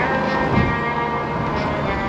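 Background music with sustained chords and light high percussion ticks.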